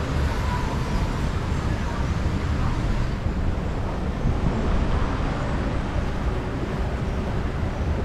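Steady rush of water flowing along a river rapids ride channel under a moving raft, with a low rumble of wind on the microphone.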